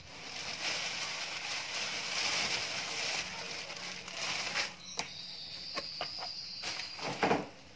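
A plastic bag crinkling and rustling for about four seconds as raw meat is pulled out of it. A few light knocks follow, with a thin, steady high tone lasting about a second and a half.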